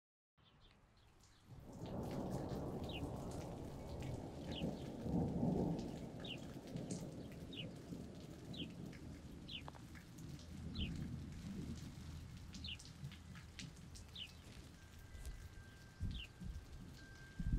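Rain falling with a low rumble of thunder that swells a second or two in and is loudest over the next few seconds. Short, high, falling chirps repeat about once a second over the rain.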